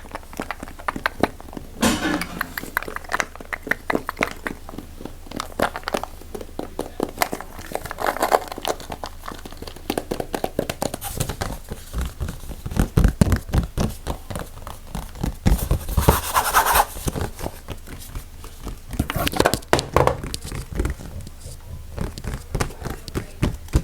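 Close-microphone ASMR triggers in quick succession: rapid tapping, scratching and crinkling on a series of objects, with louder scratchy stretches every few seconds.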